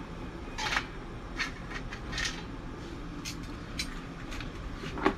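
Blue crab being put into a stainless-steel steamer pot: a few sharp clicks and scrapes of shell against the metal basket over the first four seconds, over a steady low rumble.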